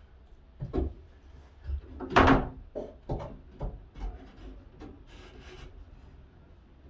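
A run of about eight wooden knocks and bumps, the loudest about two seconds in, as timber braces are fitted into place against a boat's cabin ceiling during a dry fit. A brief scrape follows near the end.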